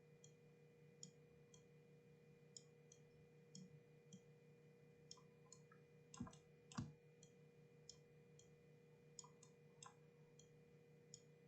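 Faint, scattered computer mouse and keyboard clicks during 3D modelling work, with two louder clicks a little past the middle, over a steady faint electrical hum.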